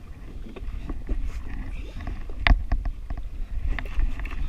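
A spinning reel being cranked to bring in a fish, with irregular clicks and knocks, the loudest about two and a half seconds in, over a low rumble of wind on the microphone and water against the jet ski's hull.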